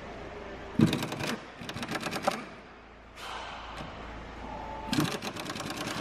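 A ratchet wrench clicking in quick runs of many even clicks, three runs in all, each starting with a knock, as bolts are turned. A short hiss comes between the second and third runs.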